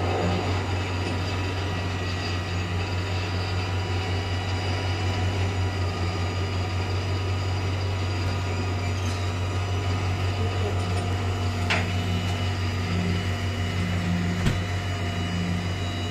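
Rollback tow truck's engine running steadily while its winch pulls a pickup up the tilted bed, with a sharp knock near the end.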